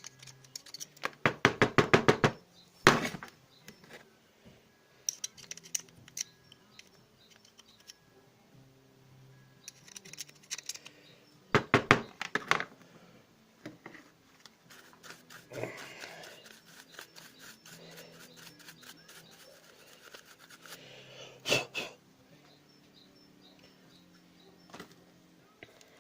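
Bursts of rapid scraping and clicking from hand work on a small brushed DC motor from a cordless drill as it is cleaned, the loudest near the start and around the middle. Faint background music runs underneath.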